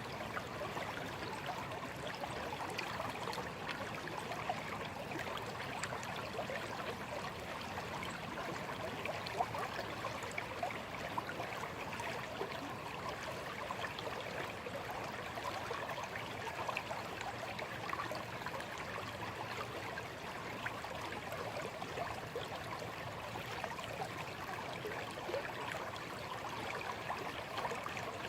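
Small stream flowing steadily over stones, a continuous babble and trickle of water.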